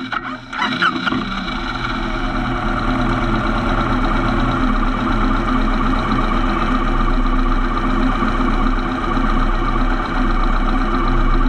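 Motorcycle engine idling steadily just after starting, a little uneven for the first second before it settles.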